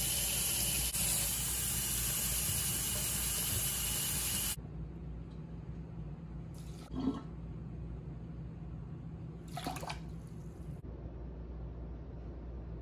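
Kitchen tap running steadily into a stainless steel sink, cut off abruptly about four and a half seconds in. Afterwards there is a soft thump about seven seconds in and a brief scrape near ten seconds.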